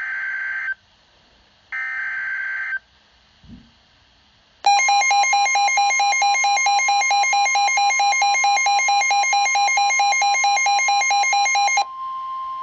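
Emergency Alert System header: screechy digital data bursts about a second long, the last ending just under 3 seconds in. Then, a couple of seconds later, the loud EAS attention signal, a harsh pulsing alarm tone lasting about seven seconds, which then drops to a quieter steady single tone, the weather-radio alert tone, that heralds a tornado warning.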